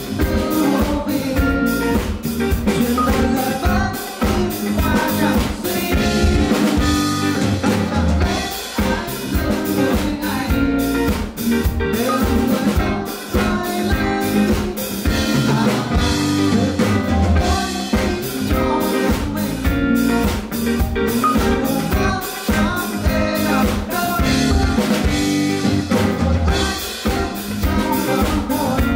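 Live band playing a pop song: a male vocalist singing into a handheld microphone over a drum kit and backing instruments, heard through a venue PA.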